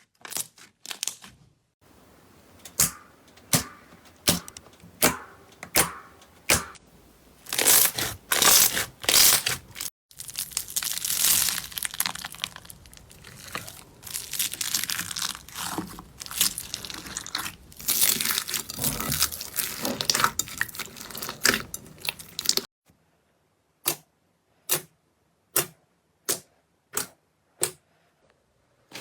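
Slime being pressed and stretched by hand, crackling and popping: separate sharp pops at first, thickening into dense crackling in the middle, then after a sudden stop only single clicks spaced apart near the end.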